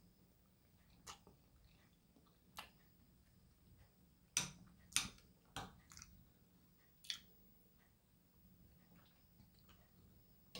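Fork and knife clicking against a plate while cutting into an omelette: a few separate sharp clicks, the loudest three close together about halfway through, over quiet room tone.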